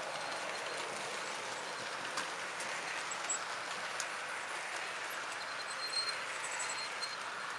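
HO-scale model passenger train rolling along the track: a steady running noise of wheels on rail, with a few small clicks at the rail joints.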